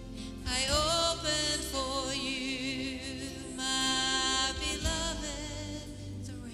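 Live worship music: a singer's held melody with vibrato, rising and falling, over sustained instrumental chords and bass. The voice drops out about five seconds in, leaving the chords.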